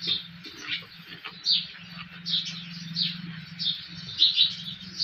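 Hot oil sizzling steadily in an iron karahi as batter fries around a metal flower-pitha mould. Over it, a bird chirps in short high notes about once or twice a second.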